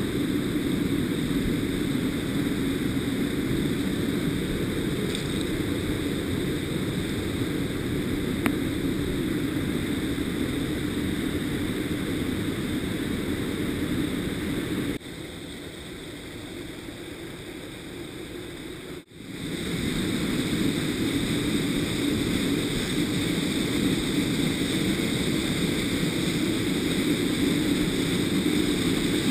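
Mountain torrent rushing through a narrow rock gorge, a steady low rumble of water. It drops to a lower level for a few seconds past the middle, then returns.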